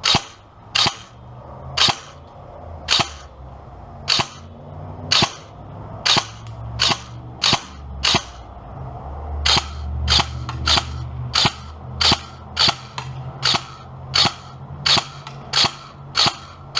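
G&G CM16 SRXL electric airsoft rifle firing single semi-automatic shots, each a sharp separate crack, about twenty in all. They come about one a second at first and speed up to roughly three every two seconds.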